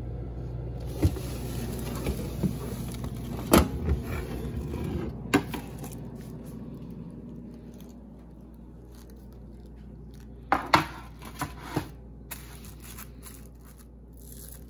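Plastic-wrapped plastic cups and a metal baking tray being handled: scattered sharp clicks and knocks, with a cluster of knocks about ten and a half seconds in, over a low hum that fades about halfway through.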